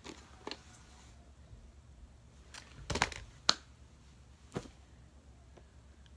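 Quiet room tone with about half a dozen light clicks and taps of objects being handled, the loudest about three and a half seconds in.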